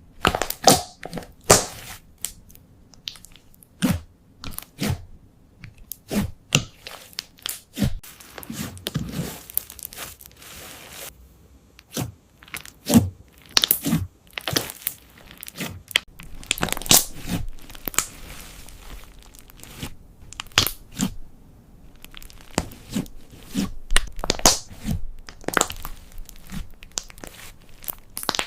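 Slime being made and worked, giving irregular sharp crackling pops and squelches, some close together and some spaced out.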